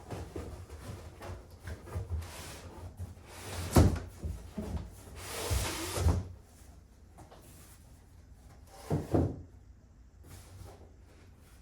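Knocks and rustling from handling a bicycle's shipping box and packaging: a sharp knock about four seconds in, a longer scraping rustle around five to six seconds, and a quick double knock near nine seconds.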